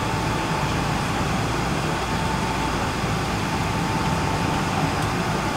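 Boeing 777-300 airliner's jet engines running at taxi power, heard from a cabin seat over the wing: a steady rumble with a thin, steady whine above it.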